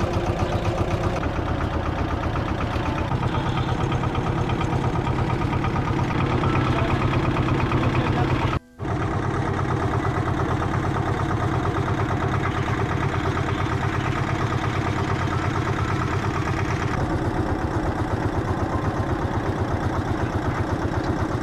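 Small fishing boat's open single-cylinder diesel engine running steadily with a fast, even chugging pulse. It breaks off for a moment about a third of the way through, then carries on the same.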